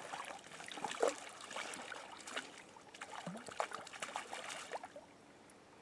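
A hooked grayling splashing at the surface beside a landing net, a run of irregular splashes that stops about five seconds in.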